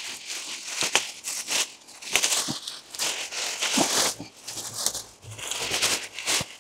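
Warrigal greens (New Zealand spinach) foliage and stems rustling and crackling in uneven bursts as the plants are torn out by hand and bundled up, with a few sharp snaps among them.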